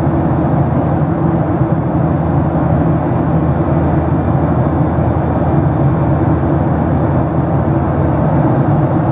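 Steady low drone inside the cabin of a Boeing 737-800 in flight: the sound of its CFM56-7B turbofan engines and the airflow over the fuselage, with no change in pitch or level.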